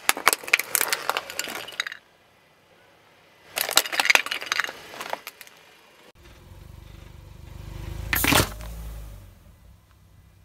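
Car tyre rolling over a hard plastic toy truck: two bouts of crunching, plastic cracking and snapping as the toy breaks apart. Then a low rumble of the car rolling in, and one sharp burst about eight seconds in as a drink can is crushed under the tyre.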